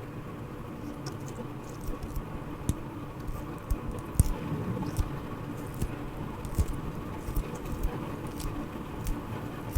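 Hands squeezing and handling a squishy toy, making irregular soft clicks and crinkles over a steady low background hum.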